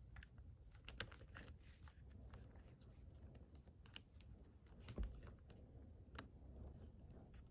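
Faint, irregular plastic clicks and clacks of GAN 356 XS speedcube pieces being fitted together by hand, the magnetic edges and corners snapping into place around the core. The sharpest clicks come about a second in and about five seconds in.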